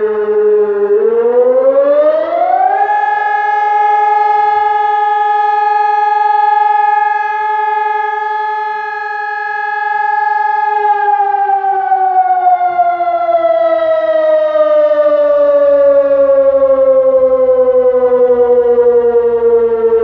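Sonnenburg SES 1200 electronic siren sounding the German fire-brigade alarm, a one-minute steady tone broken twice. The pitch is low at first and rises about a second in to a steady high tone. It holds for about eight seconds, then falls slowly for the rest, as in one of the signal's breaks.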